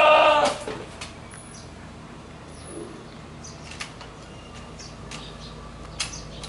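One loud, wavering goat bleat lasting under a second, followed by low background with a few faint knocks.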